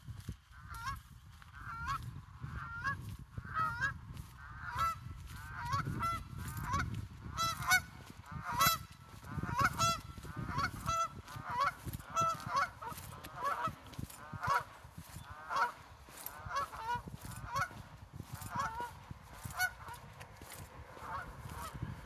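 Geese honking, a long run of calls one or two a second, over a low rumble.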